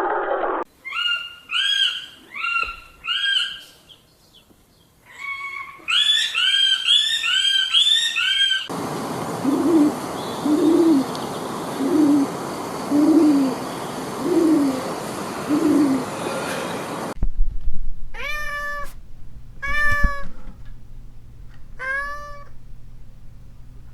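A string of different animal calls, cut together. First come two runs of short, repeated high calls, then six low hoots over a steady hiss, then four separate calls that fall in pitch.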